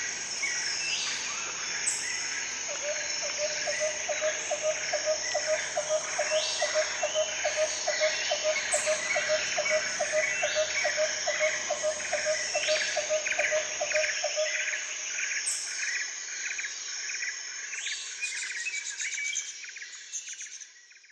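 Nature ambience of insects and birds: a steady high insect drone with repeated bird chirps and short rising calls. From about three to fourteen seconds in, a lower call repeats rapidly, a few times a second; the sound fades out at the end.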